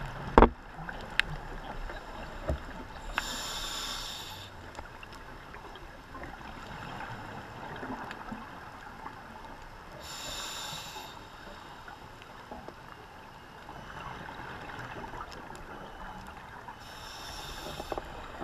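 Scuba diver breathing out through a regulator: three bursts of bubbling about seven seconds apart, heard underwater through a camera housing, with faint scattered clicks between. A sharp knock just after the start is the loudest sound.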